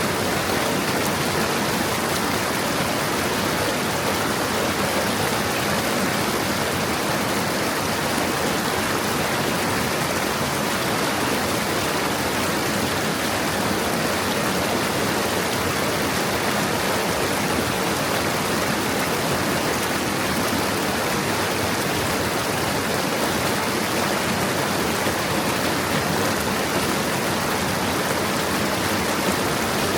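Forest stream flowing over stones, a steady babbling rush of water.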